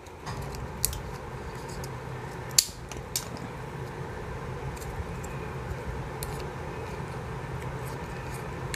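A few sharp clicks and clinks of plastic submersible-pump impeller and diffuser-bowl parts being handled and prised apart with a screwdriver, the loudest about two and a half seconds in, over a steady low hum.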